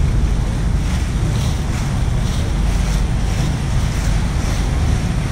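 Steady wind noise buffeting the microphone over the low rumble of a river tour boat under way.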